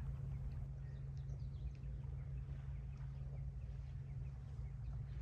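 Faint, scattered bird chirps over a steady low hum.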